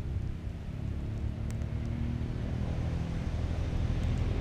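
A steady low rumble with a hum in it, growing a little louder toward the end, with one sharp click about one and a half seconds in and a couple of faint ticks near the end.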